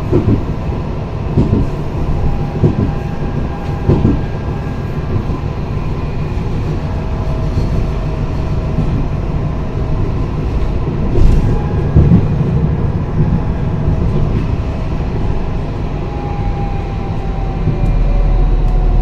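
Tram running along ballasted track: a steady rumble of wheels on rails, with a few knocks in the first four seconds and again around eleven to twelve seconds in. A faint whine drifts slightly in pitch, and the running gets louder near the end.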